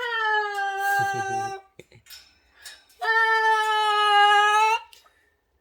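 Pet cockatoo giving two long, steady, pitched calls, each close to two seconds long. The first call sags slightly in pitch.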